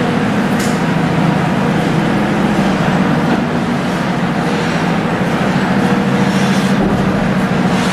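Steady machine hum with a low drone and a noisy hiss over it.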